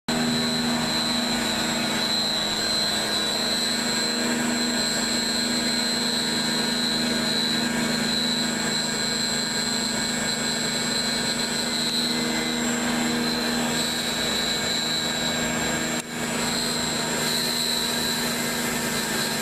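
CNC router's high-speed HSD electrospindle running under load while its cutter mills a curved workpiece: a steady high-pitched whine over a lower hum, with cutting noise, dipping briefly once near the end.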